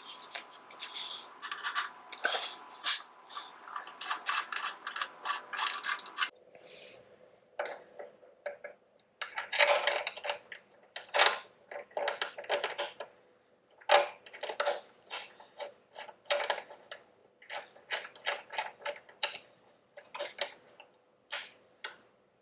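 Irregular metal clinks, clicks and scrapes of hand tools and exhaust hardware being handled while an exhaust mid-pipe is fitted to a motorcycle.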